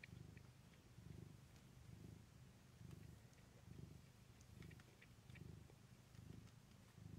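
Faint cat purring from a mother cat nursing her kittens, a low rumble that swells and fades about once a second with her breathing. A few faint clicks about halfway through.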